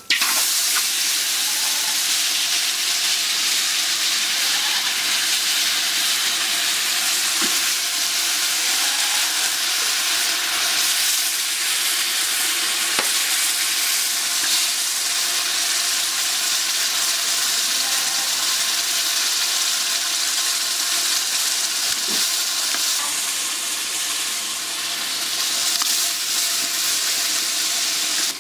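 A pot of coconut mixture cooking over a wood fire, sizzling steadily, with a few faint clinks as a steel ladle works in the pot.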